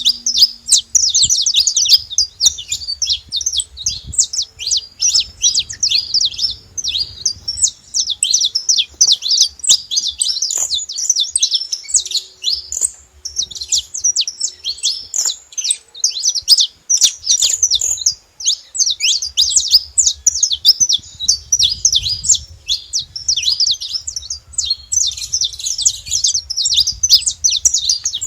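Saffron finch (canário-da-terra) singing: a fast, nearly unbroken run of high chirps and trills, pausing briefly twice.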